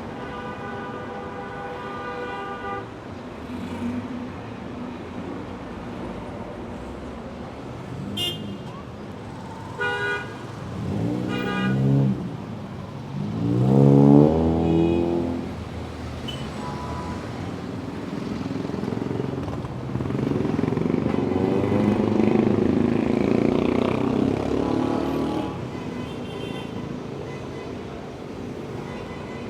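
City street traffic with a steady rumble of passing cars. A car horn is held for about three seconds at the start, several short honks come around eight to twelve seconds in, and an engine revs up and falls back loudly around twelve to fifteen seconds in. A louder vehicle passes around twenty to twenty-five seconds in.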